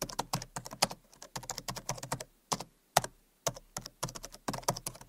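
Keyboard typing, an irregular run of quick clicks with short pauses, used as the sound of a caption being typed out on screen.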